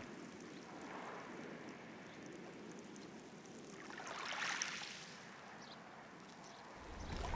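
Small waves lapping faintly on a pebble beach, with one wave washing in louder about four seconds in. A low rumble comes in near the end.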